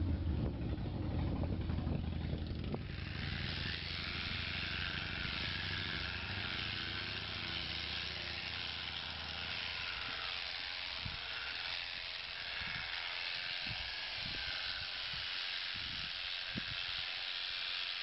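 Electric sheep-shearing handpiece running steadily as it cuts through the fleece, a continuous hissing buzz. Low wind rumble on the microphone in the first few seconds, and a few dull low thumps in the second half.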